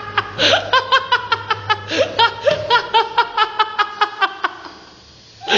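Hard, rapid laughter in quick ha-ha pulses, over the low steady hum of a running tumble dryer that dies away about four and a half seconds in.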